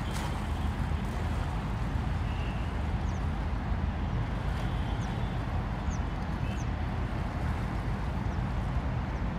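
Steady outdoor rumble of city traffic and river noise, with a few short, high bird chirps scattered through.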